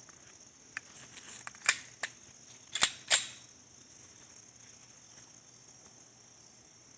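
A run of sharp clicks and clacks, small ones first and then several louder ones, the loudest between about one and a half and three seconds in.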